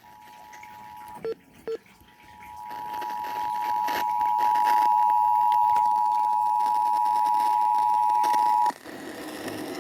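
Emergency Alert System two-tone attention signal, a steady dual-tone alarm announcing an incoming emergency alert, here an AMBER Alert. It starts faint, two short beeps sound a little past a second in, it grows loud from about two seconds, and it cuts off abruptly near the end.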